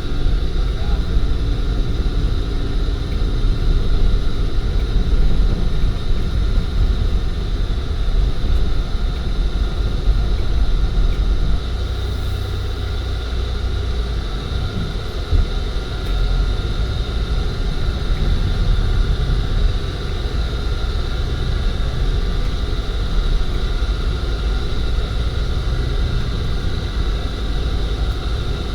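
Steady engine and road rumble heard from inside a moving bus, with a faint steady whine above it.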